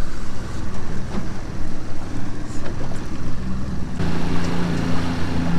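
Outboard motor running at trolling speed, mixed with wind and water rushing past the boat. About four seconds in, a steady low engine hum becomes stronger.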